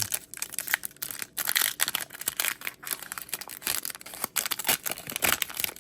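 Foil trading-card pack wrapper being torn open and crinkled by hand: a continuous run of irregular crackles and rips.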